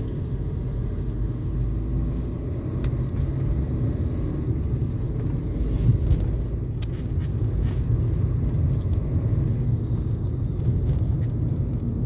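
Steady low rumble of a moving car's engine and tyres on the road, heard from inside the cabin, with a brief knock about halfway through.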